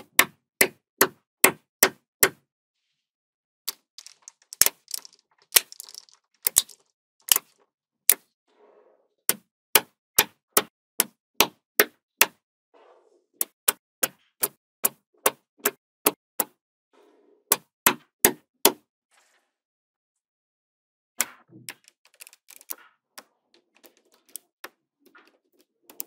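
Small magnetic balls (neodymium magnet balls) clicking sharply as strips and sheets of them snap onto a wall of magnet balls. The clicks come in runs of about two to three a second, with a soft rustle of handling between runs and a pause of about two seconds near three-quarters through.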